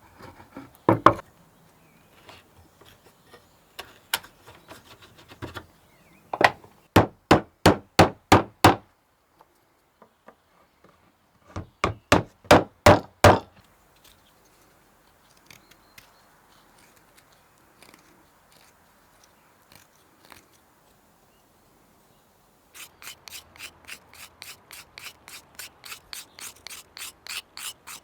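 Hand tool working wood in quick, even back-and-forth strokes, in three runs: a loud run of about eight strokes, a second run a few seconds later, then a longer, quieter and faster run near the end. A couple of knocks about a second in.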